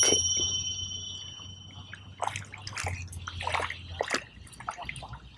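A high ringing chime at the start that fades away over about two seconds, followed by light splashing and dripping as a small panfish is played at the surface and reeled in.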